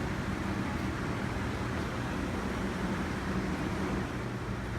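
Steady low hum over an even background rush: shop room ambience.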